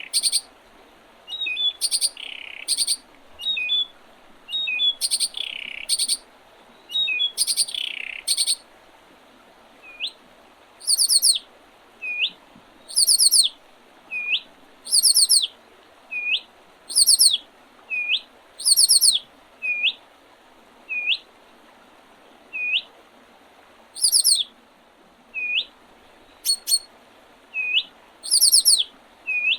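Small songbirds singing in early spring: short runs of very high, thin, quickly repeated notes, with a short upward-hooked call note repeated about once a second from about ten seconds in.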